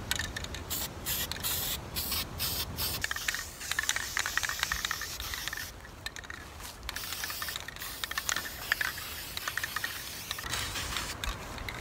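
Aerosol spray can of VHT caliper paint hissing as it is sprayed onto metal suspension spring cups, in a run of bursts with short breaks between them.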